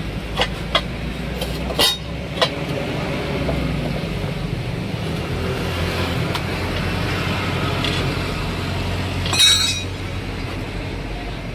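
Sharp metal clinks and knocks from tyre-changing work, four in the first two and a half seconds, over a steady low motor hum. A short sharp hiss or clank bursts about nine and a half seconds in.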